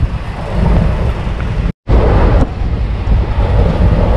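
Running noise of a moving passenger train heard from inside the coach: a steady low rumble of the wheels on the rails, with wind rushing in through the open barred window. The sound cuts out for a moment about two seconds in.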